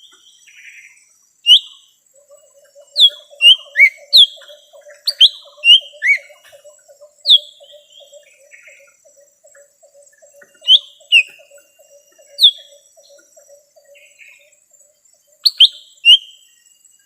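Lesser green leafbird song played as a bird-lure call: loud, sharp whistled notes that sweep down, singly and in quick pairs, at irregular gaps. A faint, rapid, low trill runs underneath for most of the time.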